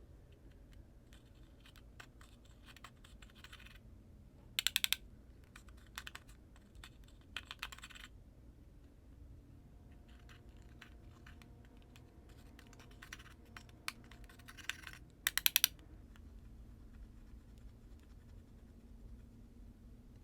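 Slime being squeezed and worked by hand, giving runs of rapid small clicks and pops, with two louder bursts of popping about 5 and 15 seconds in.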